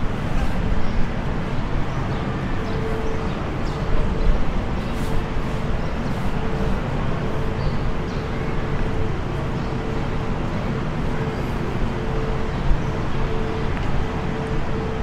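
Steady outdoor city background noise: a low rumble with a hum that holds one pitch, coming and going.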